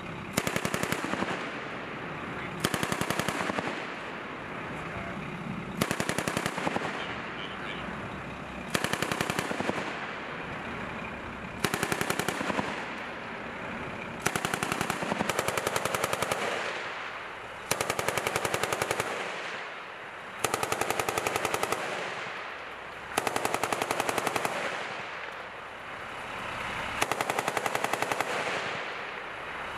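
M2A1 .50-calibre heavy machine gun firing about ten short bursts of rapid automatic fire, each a second or two long, with brief pauses between bursts.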